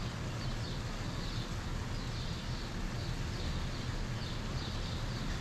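Birds calling over and over in short high calls, over a steady low rumble.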